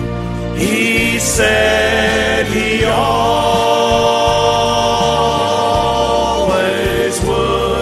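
Recorded gospel song: a male vocal trio singing in close harmony over instrumental backing with a bass line. They hold long notes and slide up into each new chord a few times.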